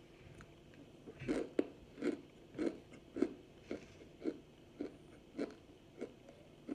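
Close-up crunching and chewing of a hard homemade cornstarch-and-water chunk in the mouth, in a steady run of crunches about two a second that starts about a second in.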